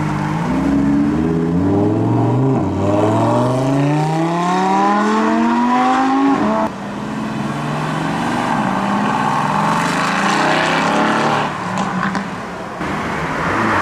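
Lamborghini Huracán EVO Spyder's V10 accelerating away, its pitch climbing through a gear, with an upshift about two and a half seconds in, before cutting off suddenly about six and a half seconds in. Then a Mercedes-AMG GT Roadster's twin-turbo V8 runs at a lower, steadier pitch as it pulls away.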